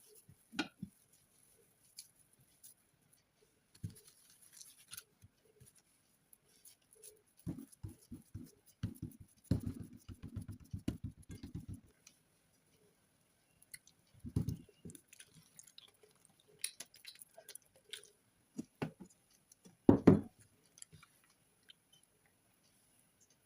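Kitchen handling sounds: scattered light taps and knocks, a run of quick pats from about eight to twelve seconds in, and a heavier thump near the end.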